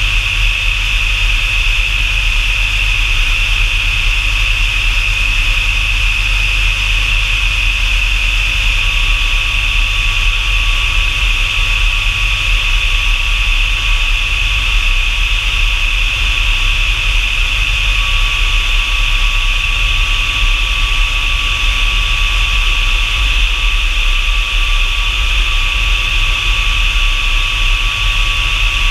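The F-100 Super Sabre's J57 turbojet running steadily, a loud unchanging high whine over a low rumble. A thin steady tone joins in about a third of the way through.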